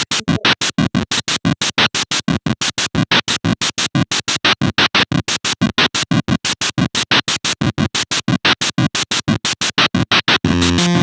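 A chiptune song played back through a preview that breaks up into rapid choppy stutters, about five a second, because the slow laptop cannot keep up. Near the end it steadies into smooth playback with held square-wave notes.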